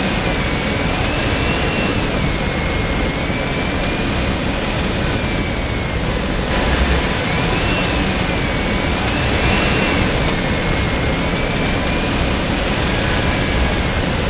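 Homemade RC truck's electric drive motor and gearbox whining as it hauls a heavily loaded trailer (about 80 kg) over rough ground. The whine rises and falls in pitch twice with the throttle, over a steady grinding rattle of gears and wheels.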